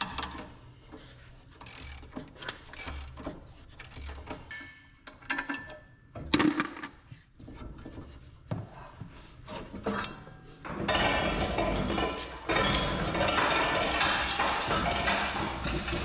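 Ratchet wrench clicking as bolts on a planter row-unit mounting bracket are turned, with short metal clanks in between. About two-thirds of the way in, a louder continuous sound takes over.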